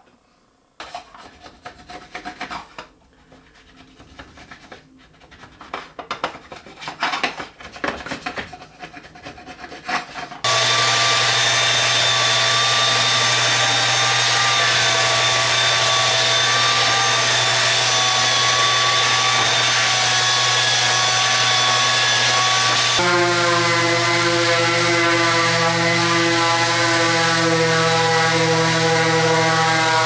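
Rubbing and scraping on wood, as dried glue squeeze-out is cleaned off a maple tabletop. About ten seconds in, an electric belt sander starts abruptly and runs steadily with a low hum. Later the machine sound shifts abruptly to a steady whine with many overtones.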